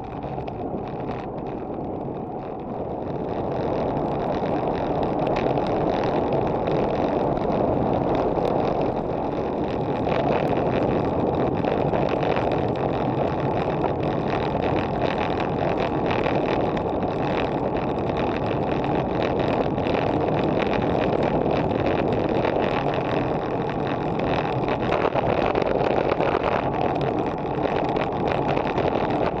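Wind rushing over an action camera's microphone with tyre rumble from a road bike riding on asphalt, a steady rushing noise that gets louder about three seconds in as the bike goes faster.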